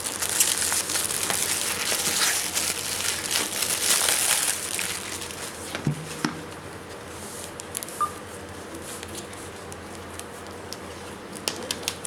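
Packaging crinkling and rustling as it is handled for about five seconds, then quieter, with a few scattered light clicks and taps.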